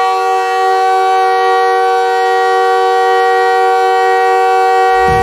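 Goal horn sounding one long, steady blast of several tones held together as a chord. A low rumble joins just before the end.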